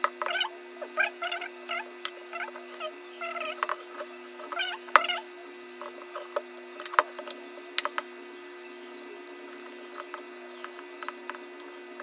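A plastic hair dryer housing and handle are handled and fitted together, giving a few sharp plastic clicks, the loudest about five, seven and eight seconds in. A steady low hum runs underneath. Short pitched squeaks or chirps come and go through the first half.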